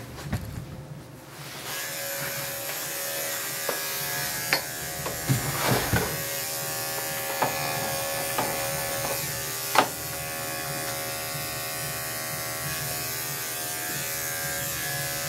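Electric dog clipper with a guard comb running steadily as it is worked through the dog's leg and body hair, getting louder about two seconds in. A few sharp clicks cut across the buzz.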